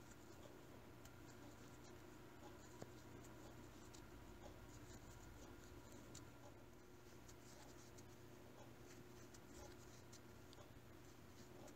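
Near silence: faint scratchy rustling and light scattered ticks of a crochet hook pulling wool yarn through stitches, over a faint steady room hum.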